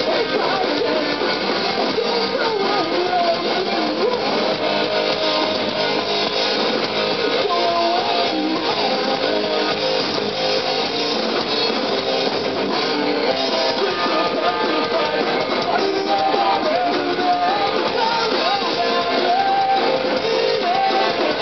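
A punk band playing live: loud, strummed electric guitars at a steady level.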